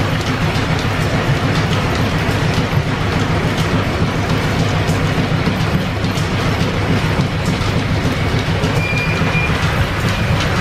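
Flat-belt-driven 1925 American 18-inch lathe running, its gears, belts and carriage making a loud, steady mechanical clatter.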